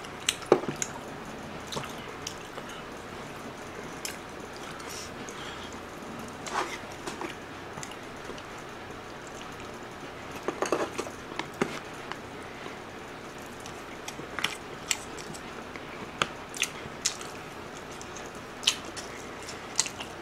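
Close-miked wet chewing and mouth sounds of someone eating marinated pork ribs, with scattered sharp clicks and taps of chopsticks against a plastic takeout tray.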